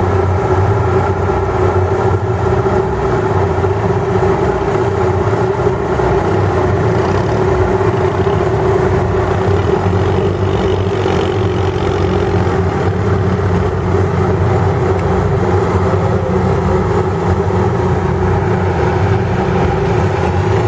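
Tracked excavator's diesel engine running steadily while it tows a stuck SUV out of a flooded mud pit, a loud, even drone with one strong held tone over a low hum.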